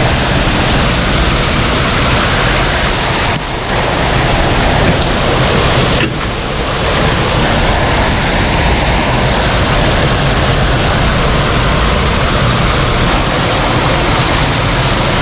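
Creek water rushing steadily through a partly unplugged culvert, loud and like a waterfall: the culvert draining as the beaver plug is cleared. The rush dips briefly twice, about three and a half and six seconds in.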